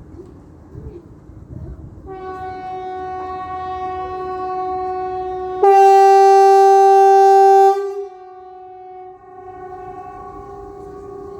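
Kockums Supertyfon pneumatic horn sounding the 'Hesa Fredrik' warning-test blast, one steady low 380 Hz note that comes in about two seconds in and swells. It jumps much louder for about two seconds, falls back, dips briefly and keeps sounding, the uneven blast of an old installation that the uploader suspects has a bad valve or relay.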